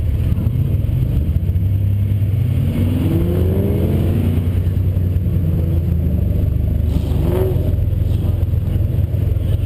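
Turbocharged 2007 Mustang's 4.0-litre V6 running at low speed with a steady low drone, rising in pitch for a second or two about three seconds in.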